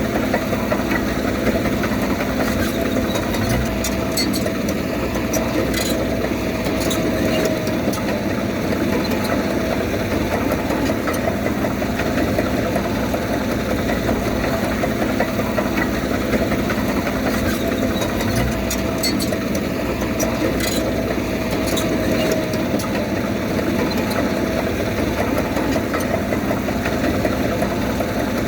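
Diesel engine of heavy earthmoving machinery running steadily, with a few sharp metallic clicks and clanks.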